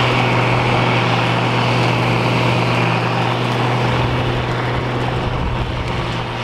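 International 5088 tractor's diesel engine running steadily under load, driving a New Holland FP230 forage harvester, with a broad rushing noise from the chopper blowing soybean straw into the forage wagon. The sound slowly grows fainter.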